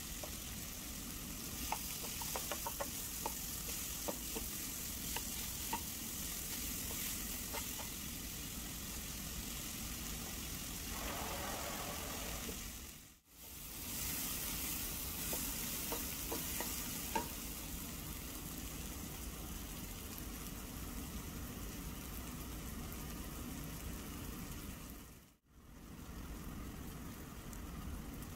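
Chopped onions and cumin seeds frying in oil in a nonstick pan, a steady sizzle, with a spatula scraping and clicking against the pan as they are stirred. The sound drops out briefly twice.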